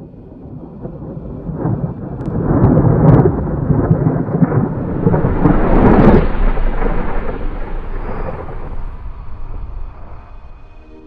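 Thunder rolling: a deep rumble that builds, swells twice with a few sharp cracks, then slowly dies away near the end.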